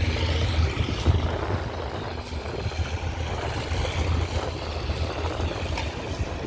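Tractor engine pulling hard under ploughing load while its wheels spin for grip, a steady low drone that swells and eases slightly.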